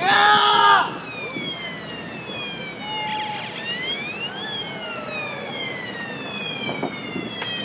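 A siren wailing in slow rising and falling sweeps, several seconds to each rise and fall. A loud pitched blast lasting under a second comes at the start.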